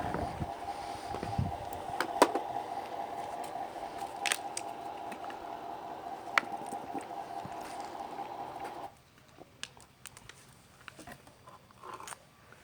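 Electric motor and gearing of a radio-controlled model truck or excavator whining steadily, with scattered clicks and knocks, then cutting off suddenly about nine seconds in; a few faint clicks follow.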